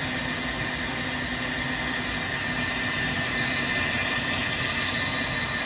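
Bandsaw running steadily with dust collection drawing at the blade while a glued-up hardwood countertop is fed through it. It makes an even machine noise with a constant high hum in it.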